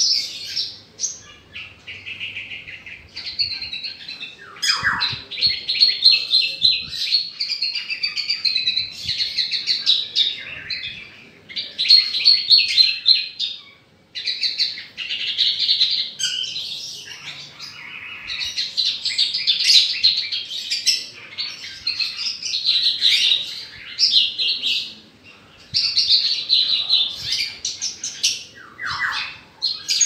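Branjangan (bush lark, Mirafra javanica) in a cage, singing a long, fast song of rapid trills and chirps. There is a short break about halfway through.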